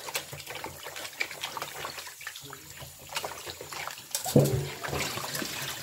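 Water trickling and splashing in a kitchen sink as meat is rinsed in water and vinegar, with small clicks of handling and a brief louder sound just past four seconds in.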